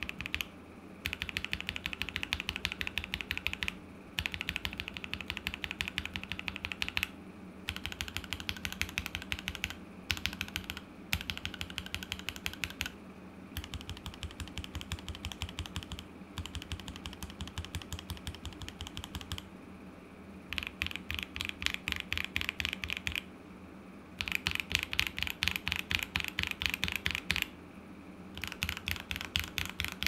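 Linear mechanical keyboard switches (Akko Matcha Green, KTT Red Wine, JWK Black and Gateron Milky Yellow) in a KBD67 Lite R2 with a polycarbonate plate, tapped rapidly in runs of two to three seconds with short pauses between. The runs move from one switch type to another, so some sound brighter than others.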